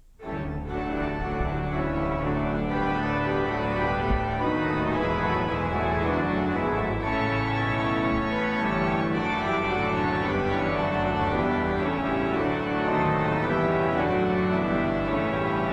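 Church organ playing full sustained chords, starting suddenly just after the opening and continuing steadily.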